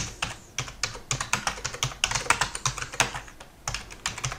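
Typing on a computer keyboard: a quick run of keystrokes, with a short pause a little after three seconds in.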